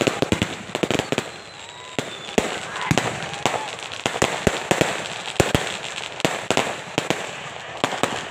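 Firecrackers going off in rapid, irregular strings of sharp bangs, many per second.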